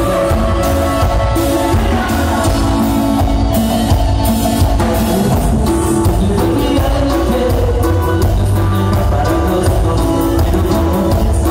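Live Latin band music played loud through a PA system, with keyboards over a steady beat and a voice singing.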